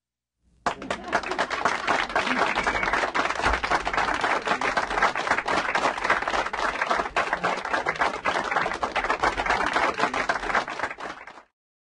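Audience applauding: a dense patter of many hands clapping that starts suddenly about a second in and is cut off abruptly near the end.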